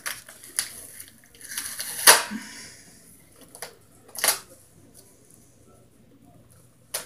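A scattering of sharp clicks and knocks, six or so, the loudest about two seconds in, over a faint steady hum.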